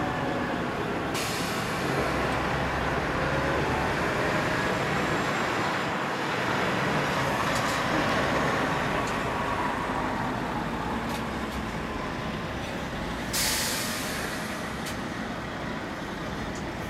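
Scania R730's V8 diesel engine running as the tractor unit pulls a long multi-axle low trailer slowly past. Two sudden hisses of released air cut in, one about a second in and a louder one near the end.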